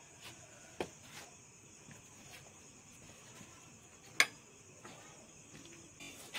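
Quiet background with a faint steady high-pitched drone, broken by a few small clicks and one sharp click about four seconds in.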